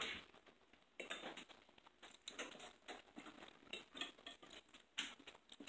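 Metal forks tapping and scraping on dinner plates, a faint, scattered string of light clicks.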